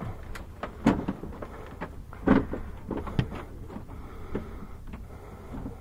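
Scattered knocks, clicks and rustling from a driver shifting about in a race car's cockpit, with a few sharper knocks about one, two and three seconds in, over a low steady rumble.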